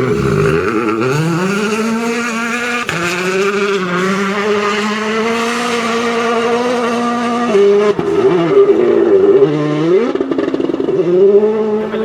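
Rally car engine at high revs. It climbs in the first second, holds a near-steady pitch for about six seconds, then drops and climbs again a few times through gear changes, loudest near the end.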